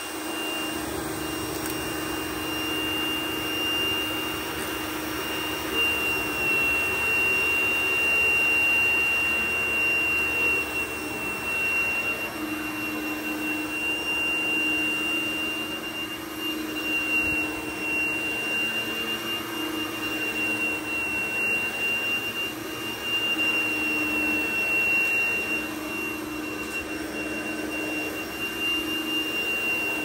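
Dyson DC01 upright vacuum cleaner running on plush carpet: a steady motor drone with a clear high whine and a lower hum. The lower hum wavers in pitch and the level swells and dips slightly as the vacuum is pushed back and forth over the pile.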